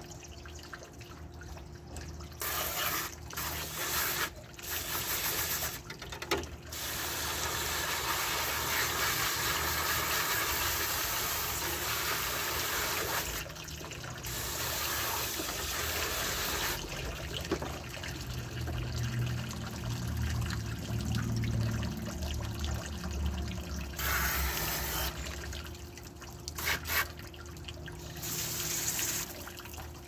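Garden hose spray nozzle jetting water into a window air conditioner, a steady hiss and splash of spray against the unit. It starts about two seconds in and cuts off and restarts several times with short gaps, sounding deeper for a few seconds in the middle.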